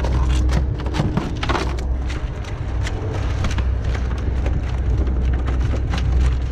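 Irregular clattering knocks of lobsters being handled and sorted into bins, over the steady low rumble of the fishing boat's engine.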